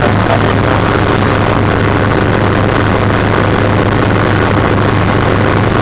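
Light helicopter in cruise flight, heard from inside the cockpit: a loud, steady engine and rotor drone with a constant low hum and no change in pitch.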